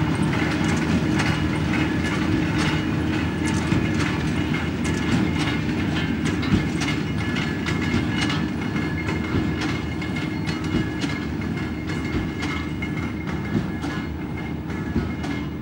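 Fendt 818 tractor pulling a Claas Quadrant 2200 large square baler at work: a steady engine drone with a constant clatter of knocks from the baling machinery. The sound fades slightly as the rig moves away.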